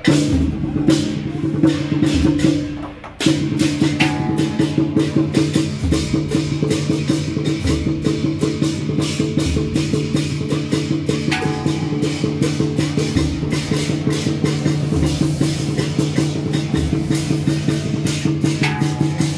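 Fast percussion music accompanying a dragon dance: rapid, even clacking strikes over a steady ringing tone, with a deep drum beat about every two seconds. The playing dips briefly about three seconds in, then carries on.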